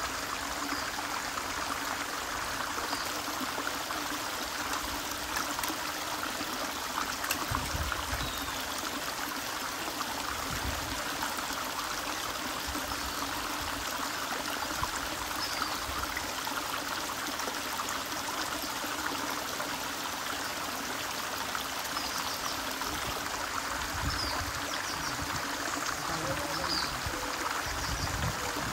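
Shallow stream running over a flat rock bed, a steady rush and trickle of water, with a few faint high chirps now and then.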